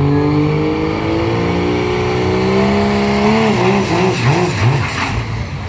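Diesel pickup engine under full load pulling a sled, its note climbing steadily, then surging up and down several times near the end before dropping away.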